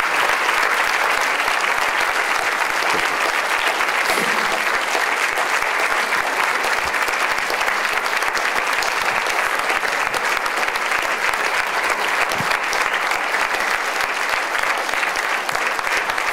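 Large audience applauding, a dense, steady wash of clapping that holds at the same level without letting up.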